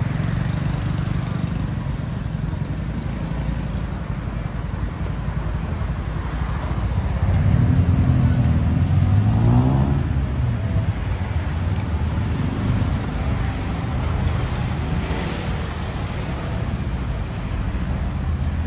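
Road traffic rumbling steadily, with one vehicle's engine rising in pitch and growing loudest between about seven and ten seconds in as it speeds up and passes.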